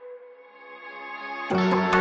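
Background electronic music: sustained synth tones that fade and swell back, then a beat with percussion coming in about one and a half seconds in.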